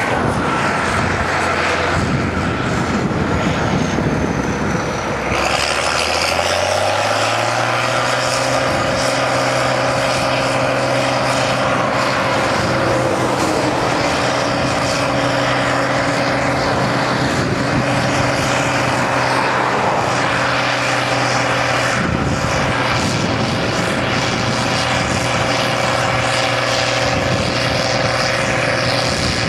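A large engine running steadily, speeding up about six seconds in so that its pitch rises, then holding at the higher speed.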